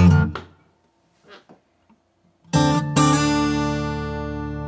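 Background music of strummed acoustic guitar. A chord dies away into a short near-silent pause, then a new chord is strummed about two and a half seconds in and rings on.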